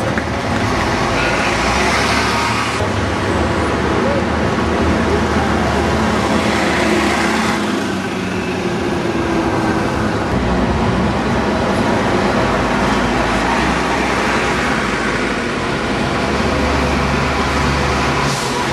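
City-street traffic with diesel buses running and passing close by. The sound changes abruptly twice, about three and eight seconds in.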